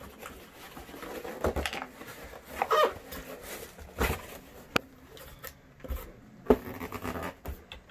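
Long cardboard box being opened by hand: the lid is lifted and slid off, with cardboard scraping and rustling and a few sharp knocks and clicks scattered through.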